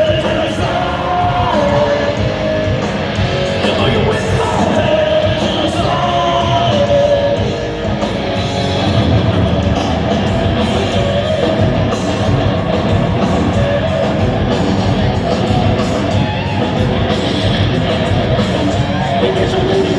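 Live heavy metal band playing loudly, with distorted guitars, drums and yelled vocals, recorded from the audience.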